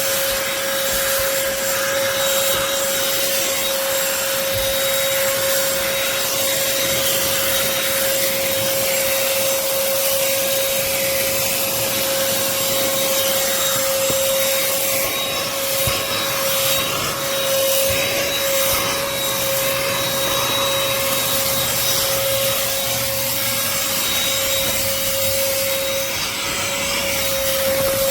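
BLACK+DECKER Pivot Vac cordless handheld vacuum running steadily, its motor giving a constant hum over the rush of suction.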